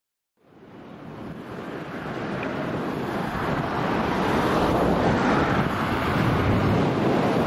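Strong wind blowing across the camera microphone: a steady rush of noise with a low rumble, fading in about half a second in and building over the next few seconds.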